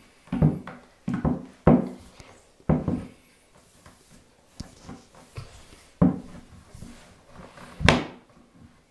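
Wooden knocks and bumps of particleboard Kallax shelf panels as a board is worked onto its dowels: a cluster of knocks in the first three seconds, another about six seconds in, and a sharper, louder knock near the end.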